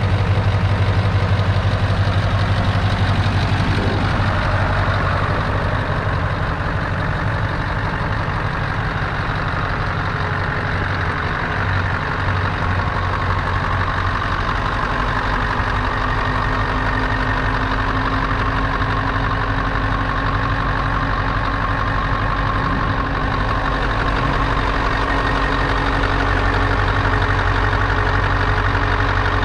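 Scania 164L 580's 15.6-litre V8 diesel engine idling steadily.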